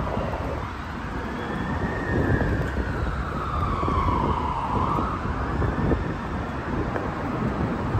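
An emergency vehicle's siren wailing in the distance, its pitch falling slowly for a couple of seconds and climbing again about five seconds in. A steady rumble of traffic runs underneath.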